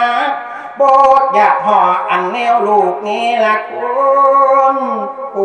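A man's voice singing a verse poem into a microphone, in a slow, drawn-out melody of long held notes that waver and bend in pitch.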